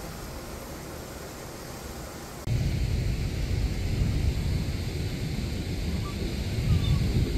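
A steady low hiss, then after about two and a half seconds a sudden jump to louder outdoor noise: wind rumbling on the microphone over churning, foamy water. A bird calls faintly near the end.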